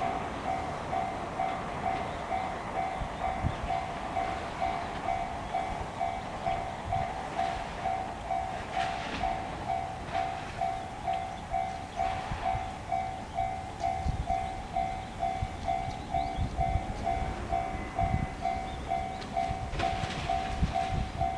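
Japanese railway level crossing's electronic warning bell, the JR standard tone pitched slightly high, ringing steadily at about two strikes a second while the crossing is closed for a train.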